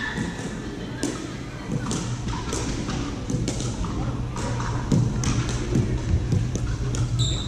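Pickleball paddles hitting a hard plastic ball and the ball bouncing on a hardwood court: irregular sharp pops, about one or two a second, echoing in a large gym, over a steady low hum.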